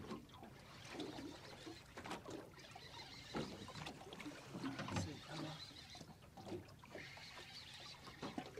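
Water slapping and trickling against the side of a drifting boat, with scattered small knocks and splashes.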